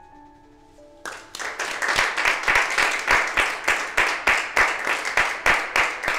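Soft music of slow held notes, then from about a second in a small group of people clapping, the claps loud and quick, over the music.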